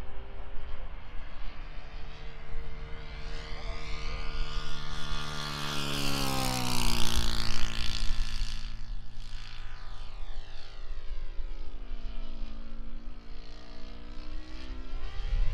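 Giant-scale RC P-51 Mustang model (Topflite, GAUI F50 with a Mejzlik 21x10 propeller) flying past, its steady engine-and-propeller drone dropping in pitch as it passes about six to seven seconds in, the loudest moment, then fading and rising in pitch again as it comes back near the end. A low wind rumble on the microphone lies underneath.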